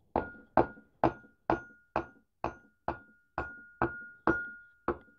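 A wooden stick tapping the steel flywheel of a Ural motorcycle engine about eleven times, evenly at roughly two taps a second. Each tap gives a short metallic ring as the flywheel is driven onto the crankshaft's taper.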